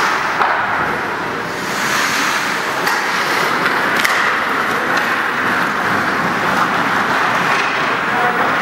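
Ice hockey game rink noise: a steady, loud din that swells about two seconds in, with a few sharp clicks.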